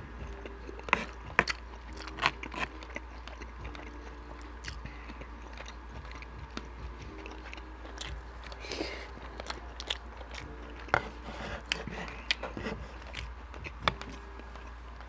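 Close-miked chewing of beef chunks and rice, with wet smacks and sharp mouth clicks at irregular intervals and a brief hiss about nine seconds in.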